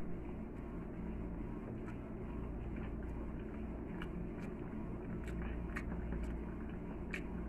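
A person eating instant noodles with a fork: chewing, with scattered small sharp clicks from mouth and fork at irregular moments, over a steady low hum.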